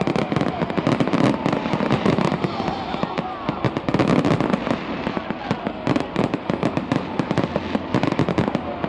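Aerial fireworks display: a dense, continuous barrage of rapid bangs and crackling shells going off one after another.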